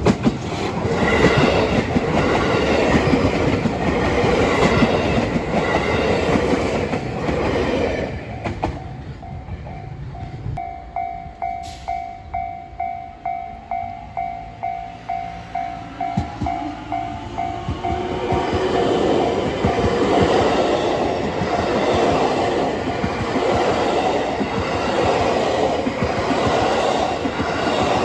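Train wheels running over the rail joints at a level crossing, a loud rhythmic clatter, for the first eight seconds or so. As it fades, the crossing's warning bell is heard ringing in rapid, even strikes. From about two-thirds of the way through, another train's wheel noise and joint clatter builds and covers the bell.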